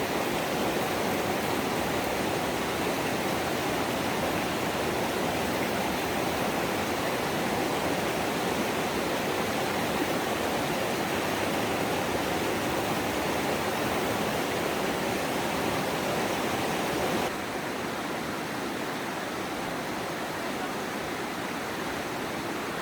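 Rushing water of a mountain river running over rocks, a steady full-range hiss. About 17 seconds in it suddenly becomes quieter and duller.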